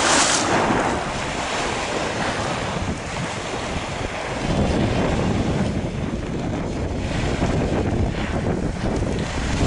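Choppy waves splashing against a stone pier wall, with strong wind buffeting the microphone. A louder splashing rush comes right at the start, and the wind's low rumble grows heavier about halfway through.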